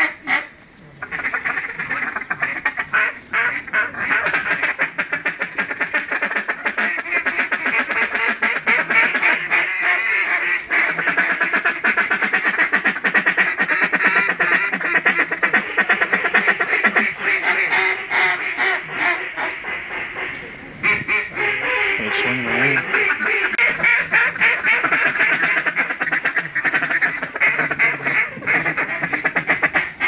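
Duck calls blown hard by hunters: rapid feeding chatter and quacks with hardly a pause, breaking off briefly about two-thirds of the way through, to work ducks in toward the decoys.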